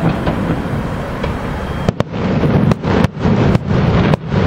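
Aerial firework shells bursting: a quick run of about six sharp bangs starting about two seconds in, over a steady low rumble.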